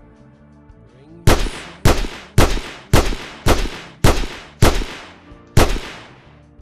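Eight dubbed-in gunshot sound effects from Battlefield 2, single shots about half a second apart, each with a short ringing tail, the last after a slightly longer gap. Faint music plays underneath.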